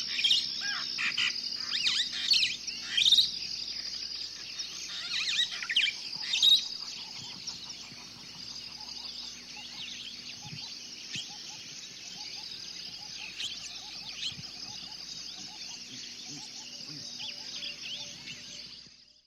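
Many wild birds chirping and calling together over a steady high trill; the chirping is busiest in the first third, thins out, and the whole fades out near the end.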